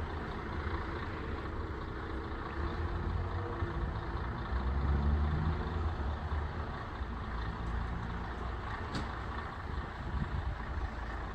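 A bus's diesel engine running as it drives past, its note rising and growing louder in the middle, over a steady rushing noise.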